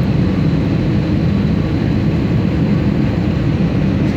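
Airliner noise during landing: a steady low rumble of engines and airflow, even throughout with no distinct bumps.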